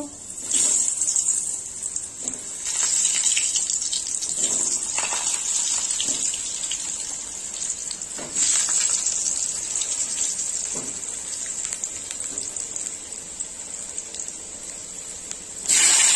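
Whole peeled potatoes deep-frying in hot oil in a wok: a steady, loud sizzle that steps up several times as more potatoes are dropped in, with scattered crackles and spatters.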